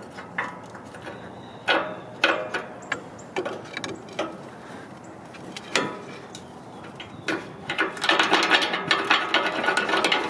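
Ratchet wrench clicking, with scattered metal knocks, while a broken front leaf-spring shackle bolt on a 1979 Chevy K20 is worked out. About eight seconds in, the clicking turns fast and continuous.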